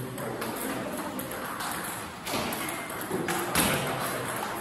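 Table tennis balls striking paddles and tables: a handful of sharp clicks and taps at irregular intervals, the loudest about three and a half seconds in.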